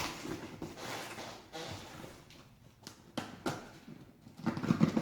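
A shipping package being opened by hand: scattered rustling and scraping with a few sharp knocks, busiest near the end.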